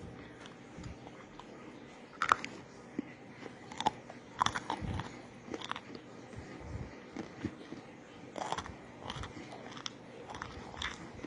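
Bites and crunching of crispy microwaved Argo cornstarch chunks being eaten: irregular sharp crunches with pauses of chewing between them.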